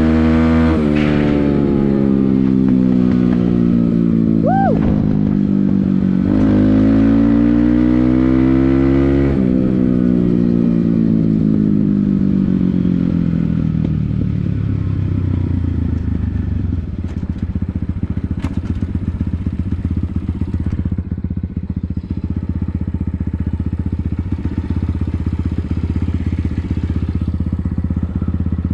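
Motorcycle engine being ridden. The revs climb and drop back twice in the first half as the rider accelerates and eases off, then settle to a steady low-rev run. A brief squeal sounds about four and a half seconds in.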